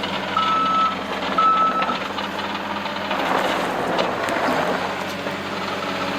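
Case TR270 skid steer engine running with its reversing alarm beeping twice near the start, each beep about half a second long.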